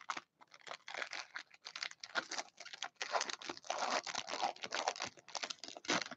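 Foil wrapper of a 2018-19 Upper Deck Black Diamond hockey card pack being torn and peeled open by hand: a dense, irregular run of crinkling crackles.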